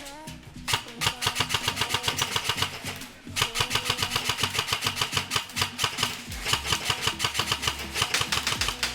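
Airsoft electric gun (AEG) firing full-auto in two long bursts, a rapid, even clatter of shots: the first about two and a half seconds long, then after a short break a second of about five seconds.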